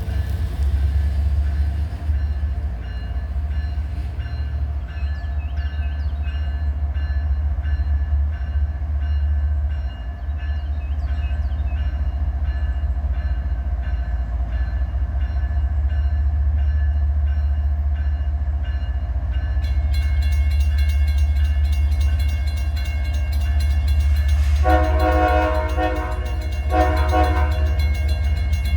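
Diesel freight locomotive running with a steady low engine rumble, joined about twenty seconds in by fine rhythmic rail noise. Near the end, two blasts of its multi-chime air horn, the second shorter.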